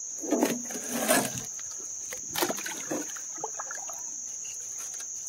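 Steady high-pitched insect trill that runs on without a break, with a few scattered scuffs and knocks from movement in the creek-bank mud.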